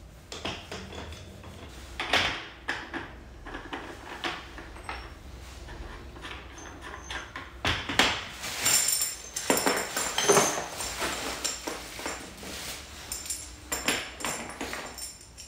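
Brass plumbing fittings and valves clinking and knocking as they are handled, set down on a tiled floor and picked through in a plastic crate. The clatters are irregular and loudest about eight and ten seconds in, some with a short metallic ring.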